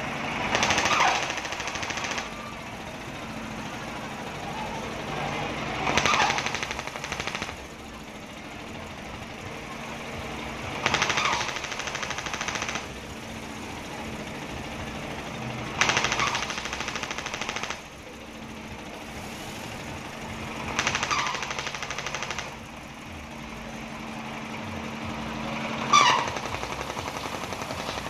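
Diesel engine driving a kora-kora pirate-ship ride through an open, loud exhaust. It runs with a steady hum and surges into a hard, rattling burst about every five seconds, six times, each burst lasting one and a half to two seconds as the engine pushes the swinging boat.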